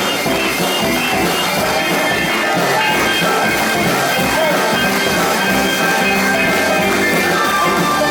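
Live band playing 1950s-style music with a steady drum beat.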